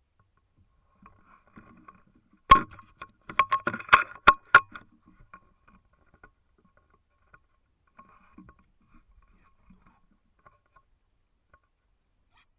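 Sharp clicks and knocks from handling a rifle and its scope-mounted camera: one loud click about two and a half seconds in, then a quick clatter of about eight more over the next two seconds, and a few faint ticks after that.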